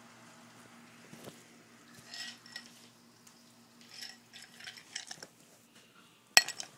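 Handling noise from a phone camera being moved about: scattered light clicks and rustles, then one sharp loud knock near the end followed by a few quick clicks.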